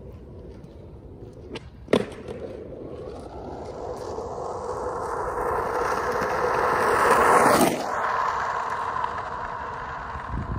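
Skateboard wheels rolling on an asphalt path, growing steadily louder as the board approaches, passing close by about three quarters of the way through, then fading. A single sharp clack about two seconds in.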